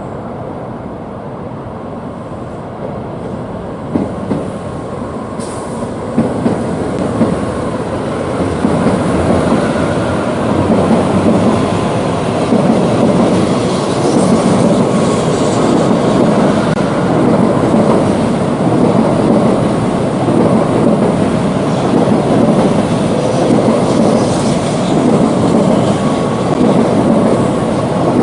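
A train running on its track with a steady rolling rumble and rail clatter, growing louder over the first eight seconds or so and then holding steady.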